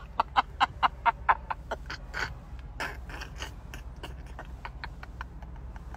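A woman laughing behind her hand in quick, breathy bursts, about four or five a second, strong at first and fading away over the last few seconds. Under it runs a steady low rumble of wind in the open-top car.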